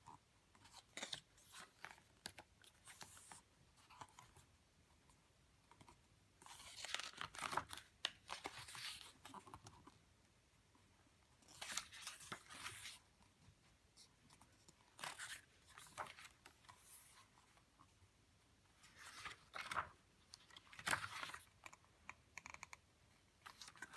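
Pages of an album photobook being turned and handled: soft, intermittent paper rustles and flips in several short clusters, with quiet gaps between them.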